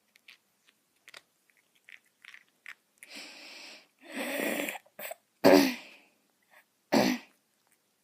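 Cats grooming each other: soft wet licking and nibbling clicks, then several louder short rustling bursts, the loudest a little past halfway.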